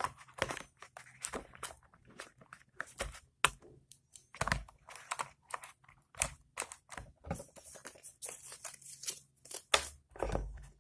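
Plastic packaging crinkling and rustling with small clicks and knocks, in irregular quick bursts, as a phone charger and its wrapping are handled and unpacked.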